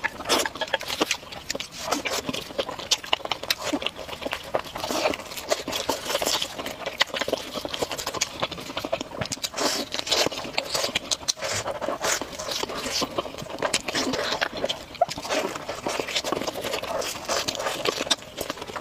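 Close-miked eating sounds of a person chewing a rice-stuffed chicken wing, with wet lip-smacking and finger-sucking. There are continual small sticky clicks throughout.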